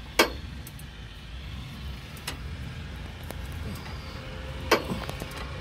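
Sharp clicks from a wrench and extension bar turning an engine over by hand, over a low steady rumble: one about a quarter second in, a fainter one near the middle, and another near the end.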